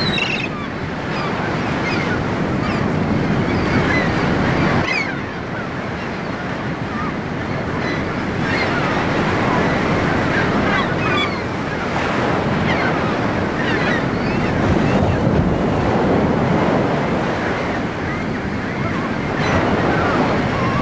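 Ocean surf: waves breaking and washing in, swelling and ebbing every few seconds, with short high cries scattered over it.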